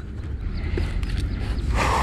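A landing net holding a small caught fish is brought onto the raft's wooden planks. About three-quarters of the way through there is a short scraping rustle of the net, over a low steady rumble.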